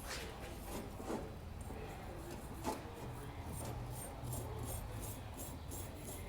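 Wire brush scrubbing the dust off a brake caliper bracket in repeated scraping strokes, with a few light metallic knocks.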